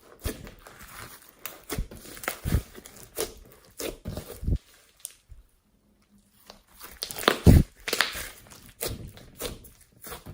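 Irregular crinkling and crackling handling noises with soft thumps, stopping for about a second and a half in the middle.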